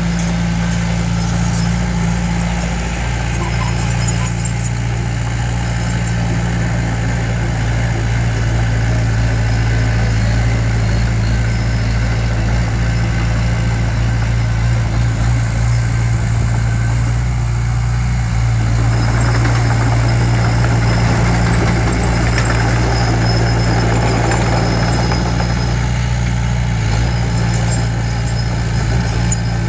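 A heavy construction machine's diesel engine running at a steady speed. A rougher rushing noise joins it from about two-thirds of the way through.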